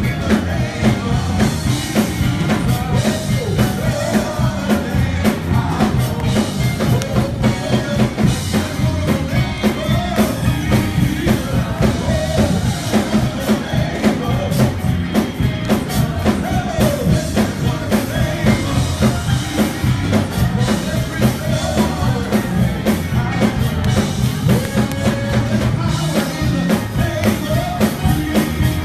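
Live worship music: a praise team singing into microphones over an amplified band with drums keeping a steady beat.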